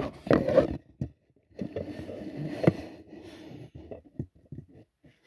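Handling noise of a phone camera being grabbed and repositioned: rubbing and scraping against the microphone with a couple of sharp knocks, the loudest about a third and halfway in.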